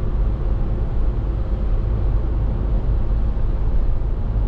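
Coach bus driving: a steady low engine and road rumble.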